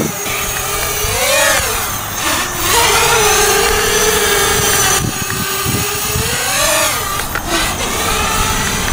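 Racing quadcopter's DYS 2206 brushless motors and propellers whining in flight, the pitch mostly steady but swooping up and back down a few times as the throttle changes.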